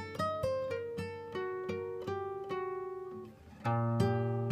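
Background music of a plucked guitar picking a melody note by note, dipping briefly and then coming back louder with fuller chords about three and a half seconds in.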